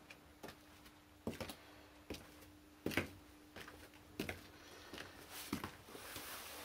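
Boots stepping and shuffling on a concrete floor: irregular light taps and scuffs, about one every half second to a second, over a faint steady hum.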